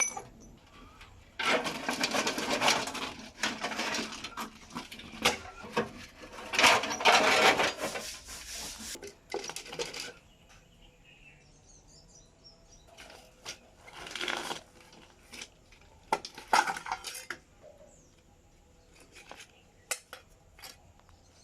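Metal parts clinking and scraping by hand in a workshop: two longer loud spells in the first half, then a few shorter, quieter bursts with near-quiet gaps between.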